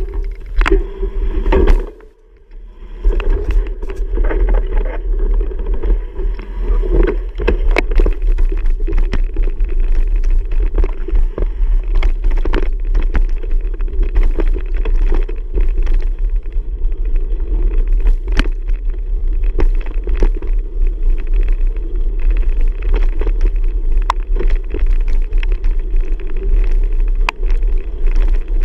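Riding a bicycle: a steady low rumble of wind on the microphone, with frequent clicks and rattles. The sound drops away briefly about two seconds in.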